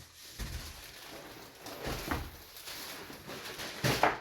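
Plastic bag rustling and crinkling as all-weather floor mats are pulled out of it, with a louder rustle and knock near the end.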